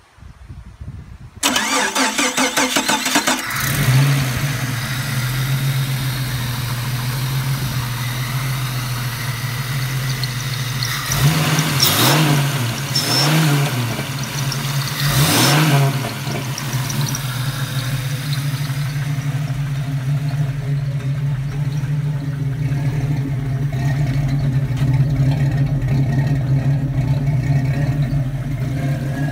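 Jeep 4.0L HO inline-six cranking on the starter for about two seconds, then catching and settling into a steady idle. It is revved by hand three times in quick succession partway through, each rev rising and falling back to idle, with the accessory belt squeaking.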